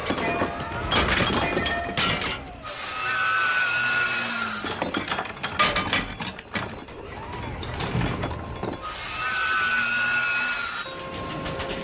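A power tool whines in two runs of about two seconds each. Between them come bursts of sharp clattering and crashing impacts, like a mechanical accident in a film sound mix.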